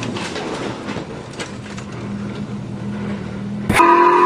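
A car engine running steadily, heard as a low even hum with a few faint knocks. Near the end it cuts abruptly to a much louder, high sustained tyre squeal over engine noise from a drifting car.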